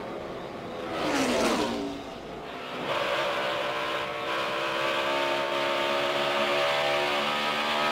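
NASCAR Cup stock cars passing a trackside microphone, their engine note falling steeply in pitch as they go by. Then the in-car sound of a Cup car's V8 under power, a steady note that climbs slowly as it accelerates.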